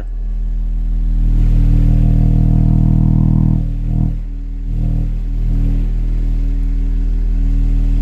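Pioneer TS-W126M 12-inch subwoofer playing a steady 40 Hz test tone at high power, with a buzzy, distorted edge over the deep hum. The driver is being pushed to around the point where its mechanical limits become audible. The tone swells about a second in, drops briefly around four seconds in, then holds steady.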